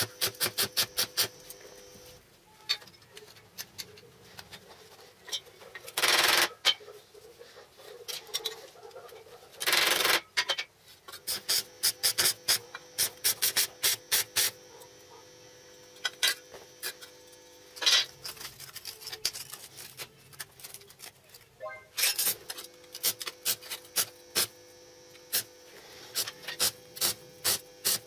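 Stick (arc) welding on a steel profile: the electrode's arc crackles and spits in quick, even pulses, in stretches broken by short pauses, with a faint steady hum while it burns. Two louder, half-second rushes of noise come about six and ten seconds in.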